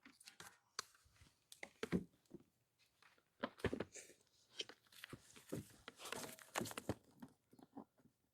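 Faint, scattered small clicks and taps of a bridge rectifier and multimeter probes being handled on a workbench.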